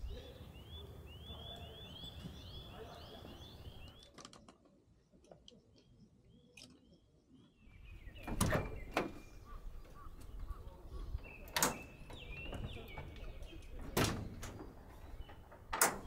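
A bird singing a fast run of about a dozen repeated chirping notes for the first few seconds. Later, against a low wind rumble, five sharp knocks or clunks come at uneven intervals, with a few more bird notes between them.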